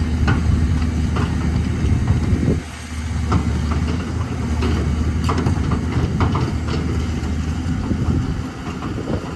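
Caterpillar 320 excavator's diesel engine running steadily, with scattered sharp knocks and clatter from the machine's work. The engine drops in level briefly about two and a half seconds in.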